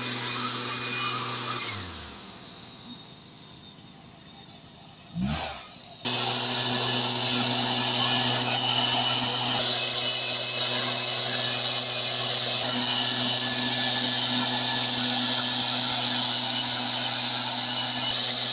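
Stihl backpack mist blower's two-stroke engine running at high throttle, a steady whine with a strong rush of air. About two seconds in the engine winds down and goes much quieter; near five seconds it briefly rises, and about six seconds in it is back at full, steady running.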